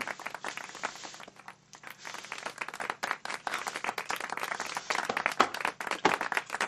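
Food sizzling and crackling in a frying pan on a stovetop: a dense, irregular patter of small pops that eases briefly about a second and a half in.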